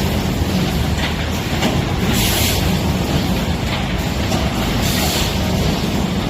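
Folding-box making machine line running steadily, a continuous mechanical rumble with a burst of hiss about every two and a half seconds as it cycles.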